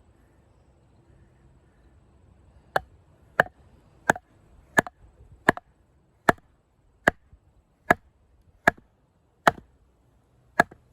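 A baton striking the spine of a Condor Heavy Duty Kukri again and again, driving the blade sideways through a hard log to split it. After a short pause come about eleven sharp knocks with a short ring, a little under a second apart.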